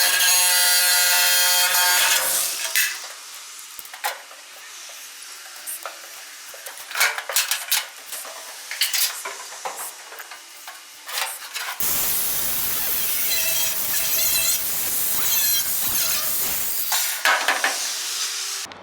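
Power tools cutting through a steel radar arch. A motor runs loudly at the start, then stops, followed by scattered metal clinks and knocks, and about twelve seconds in a second stretch of loud cutting runs for about five seconds.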